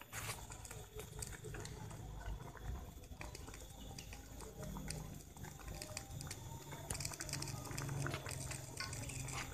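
Patin fish and chillies cooking in a black wok over a gas stove. It crackles and sizzles throughout, with the wooden stick scraping and tapping the pan as it stirs.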